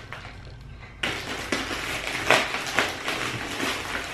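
Plastic mailer bag crinkling and crackling as it is cut open with scissors and handled, starting about a second in, with a few sharper crackles along the way.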